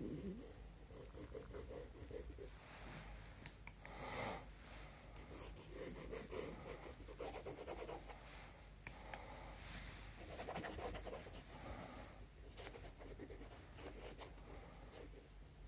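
Faint scratching of a wooden stick drawing ink lines on paper, in short intermittent strokes with a few small clicks.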